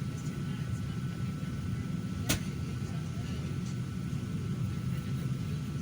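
Steady low rumble of an airliner cabin's air supply, with a thin steady whine above it. One sharp click comes a little over two seconds in.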